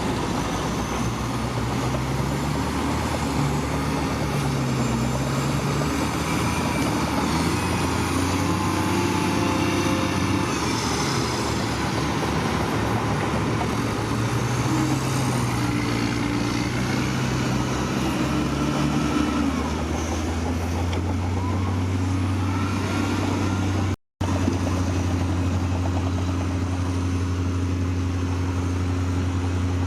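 Heavy diesel engine of earthmoving machinery running, its pitch rising and falling as the load changes. The sound cuts out for a moment about three quarters of the way through, then an engine runs on at a steady speed.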